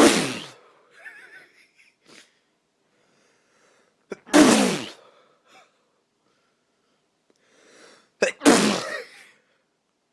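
A man sneezing three times, about four seconds apart. Each is a sharp burst that trails off into a falling voiced sound, with faint breaths between.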